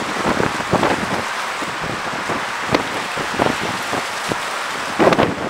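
Steady rushing noise with scattered crackles, from wind on the microphone and choppy river water, with a louder gust near the end.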